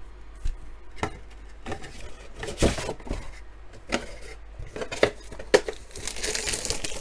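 Cardboard box and trading card packs being handled and set down on a table: a string of sharp knocks and taps, with a rustle near the end.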